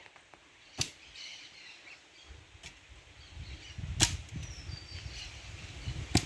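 Gusting wind buffeting the microphone, a low rumble that builds from a couple of seconds in, with four sharp clicks along the way.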